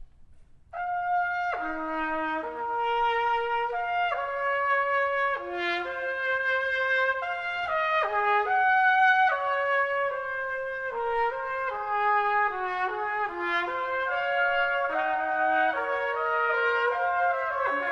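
Brass quintet playing a piece with the trumpets leading, several parts moving together in short, distinct notes. The music starts about a second in after quiet.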